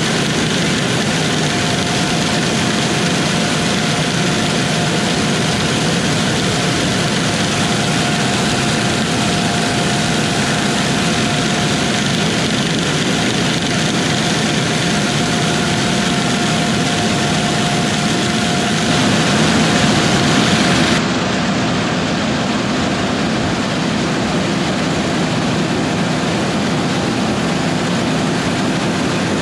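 Large diesel harvest machinery running steadily under load, with a faint steady whine that stops about two-thirds of the way through. The sound shifts abruptly a little later, as at a cut between shots.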